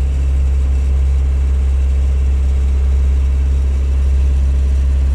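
Sailboat's inboard engine running steadily under way, a constant low drone with no change in speed.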